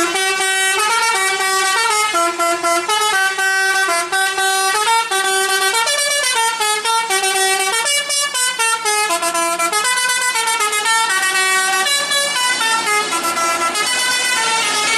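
Bus 'telolet' horn, a multi-tone musical air horn, playing a quick melody of stepped notes without a break, cutting off near the end.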